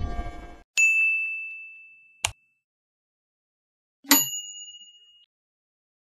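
Two bright, bell-like ding sound effects about three seconds apart, each ringing out over about a second, with a short sharp click between them. The tail of background music dies away just before the first ding.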